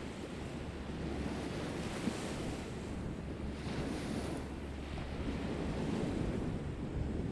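Sea waves washing onto the shore, with wind blowing on the microphone. The surf surges in hissing swells about two and four seconds in, under a steady low rumble from the wind.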